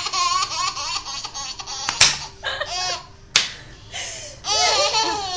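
Baby laughing in three high-pitched bouts, with two sharp smacks about two seconds in and a little later.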